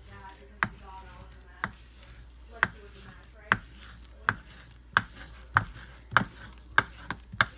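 Kitchen knife chopping crosswise through a stack of raw bacon strips, each cut ending in a sharp knock on a plastic cutting board. About eleven cuts, roughly one a second at first and quickening near the end.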